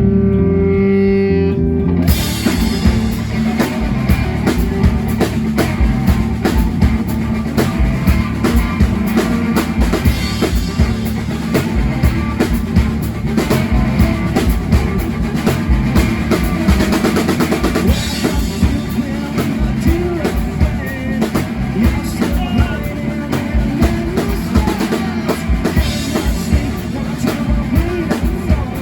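Live band music: a held chord for the first two seconds, then the drum kit comes in and the band plays on with steady drums and guitar.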